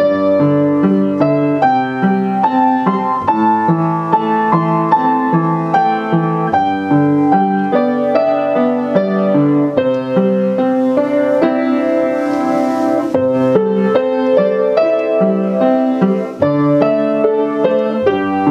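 Background instrumental music led by piano, a melody over chords moving at an even pace.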